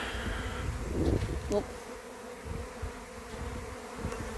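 Honey bee swarm in flight all around: the steady, dense hum of many bees buzzing at once as the swarm gathers on a tree. A short low rumble on the microphone about a second in.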